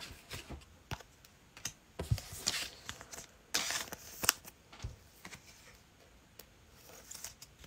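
Trading cards and packaging being handled: scattered light clicks and short rustles, with a longer crinkling rustle about three and a half seconds in.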